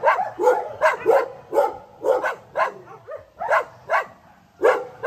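Several dogs barking in quick, uneven succession, about three barks a second, with some barks overlapping.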